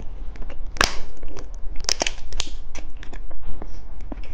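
Close-miked eating of burst-filled gummy candy: a run of sharp clicks, crinkles and wet smacks, with louder ones about a second and two seconds in.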